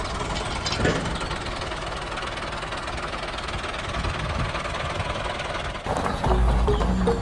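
A small motor on a homemade mini tractor running with a rough, rapid rattle. It cuts off suddenly about six seconds in, and background music starts.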